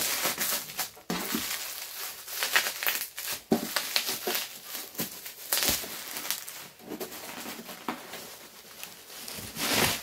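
Plastic bubble wrap crinkling and rustling as it is pulled off and pushed aside, with irregular crackles throughout.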